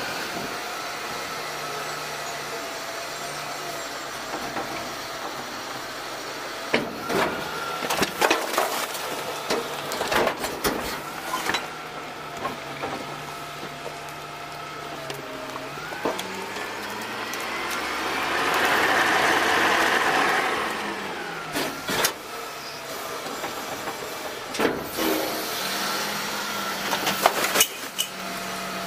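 DaDee Scorpion automated side-loader garbage truck running, with bursts of knocking and clatter as trash from carts drops into the hopper, twice. Between the dumps, the truck's engine revs up and back down as the hydraulics work the arm.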